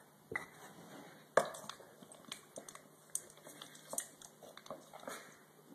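A spoon stirring in a bowl of liquid, tapping and scraping against its sides in a string of irregular light clicks, the sharpest about a second and a half in.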